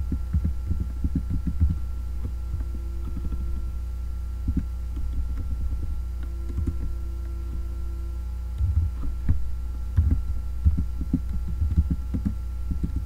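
Computer keyboard being typed on in short runs of taps, a run at the start and a longer one in the last few seconds, over a steady low hum.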